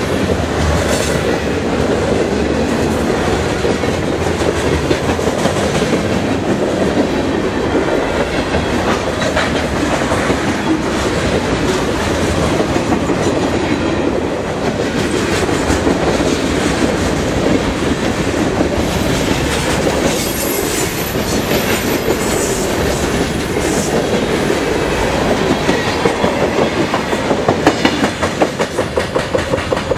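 Freight cars of a CSX freight train rolling past close by, steel wheels clattering over rail joints in a steady loud rumble, the clacks turning into a quick regular beat near the end.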